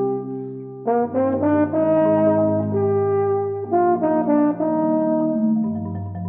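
Chamber music: a French horn playing held notes and short phrases with marimba, the phrases entering about a second in and again near four seconds.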